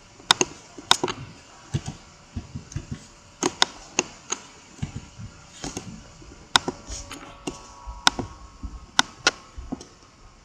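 Computer keyboard keys being pressed one at a time: a dozen or more sharp taps at an uneven pace.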